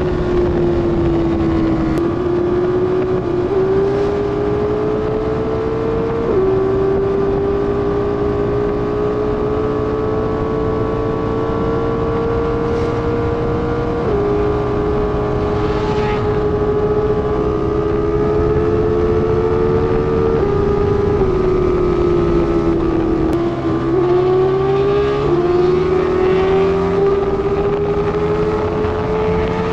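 Superbike engine at high revs under hard riding, its pitch climbing slowly and dropping suddenly at each gear change, about a dozen times.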